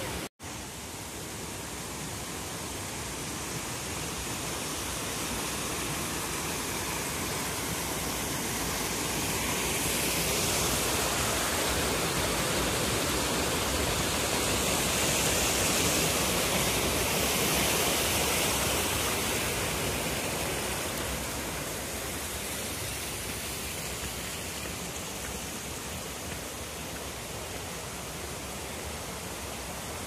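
Rushing water of a rocky gorge stream and its falls, a steady hiss that grows louder from about ten seconds in, is loudest at the middle while the footbridge is crossed over the stream, and eases off again. A split-second dropout comes just after the start.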